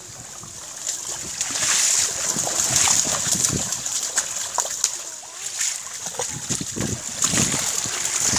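Fish trapped by a pond net leaping and falling back into shallow water, a quick, irregular run of splashes and water slaps.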